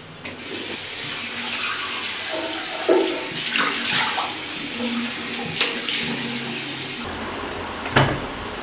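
Bathroom washbasin tap running while someone splashes water on their face, with a few louder splashes. The running water stops suddenly about seven seconds in, and a single sharp thump follows near the end.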